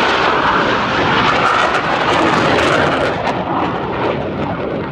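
Military jet flying past at an air show, a loud steady jet-engine rush that eases a little after about three seconds.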